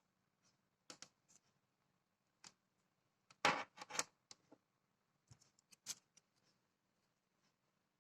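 Handling noises of a small humidifier and its packaging: scattered light clicks and knocks, with a louder rustling scrape about three and a half seconds in and a sharper click near six seconds.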